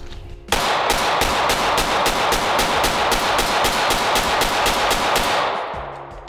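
Rapid semi-automatic fire from a 9mm pistol: a string of shots at about four a second, starting about half a second in and lasting roughly five seconds, with the echo dying away after the last shot.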